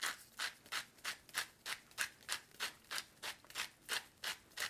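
Hand-twisted salt grinder grinding salt into a bowl of dressing, a steady run of short rasping strokes at about three a second.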